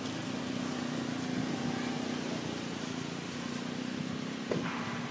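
A steady mechanical hum, like a small engine or motor running, holding one low pitch over a noisy background. A brief sharp sound cuts in about four and a half seconds in.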